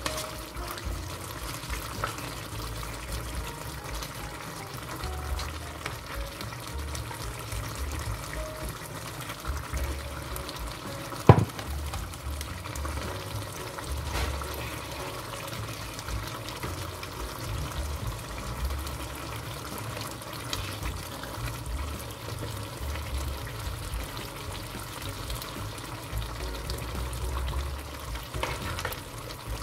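Broccoli and salmon stew simmering and sizzling in a frying pan, with a spatula stirring through it at times. One sharp knock about eleven seconds in.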